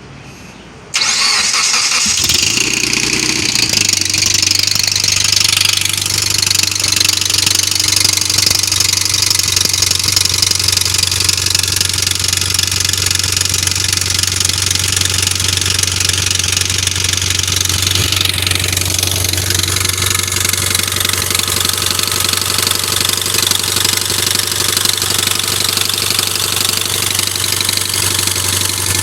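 Mitsubishi Lancer Evolution X's turbocharged 2.0-litre four-cylinder starting about a second in, then idling cold with a knocking rattle. This is the start-up knock that fades once the engine warms. New cam solenoids and a new timing chain, guides and tensioner have not cured it, and the owner suspects the cam sprockets.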